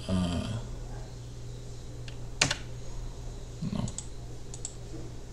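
A few scattered computer keyboard keystrokes, the sharpest about halfway through, over a steady low hum.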